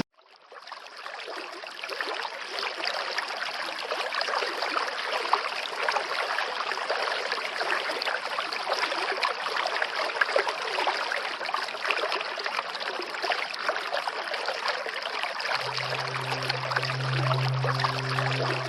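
Steady running water, like a stream or waterfall, fading in over the first couple of seconds. Low sustained music tones come back in near the end.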